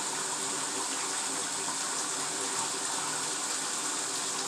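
Bathtub filling: water running steadily from the tap into the tub.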